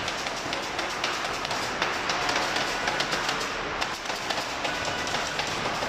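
Factory dismantling-line noise: machinery running under a steady clatter of small metal knocks and clicks as washing machines are taken apart.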